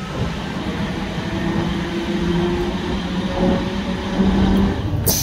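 An NMBS AM75 electric multiple unit running: a steady rumble of the moving train with a faint low hum from its running gear. The sound breaks off abruptly near the end.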